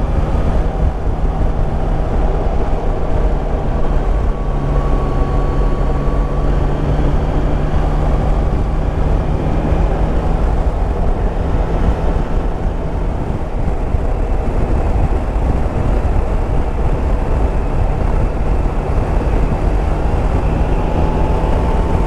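Yamaha Tracer 9 GT's three-cylinder engine running at a steady cruise, with wind rushing over the microphone. The engine note holds even throughout.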